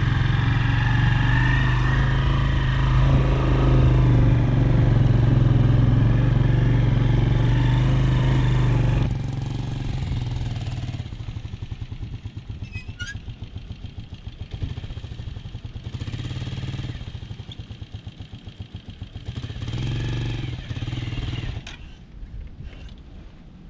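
Small motorcycle engine running, loud and close for about the first nine seconds as the bike is ridden. It then continues more quietly with an even pulsing beat, swelling briefly twice as the throttle is blipped, and drops low near the end.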